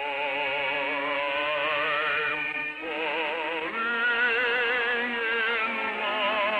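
A man singing in operatic style, holding long notes with wide vibrato and moving to a new note about three seconds in, with orchestral accompaniment.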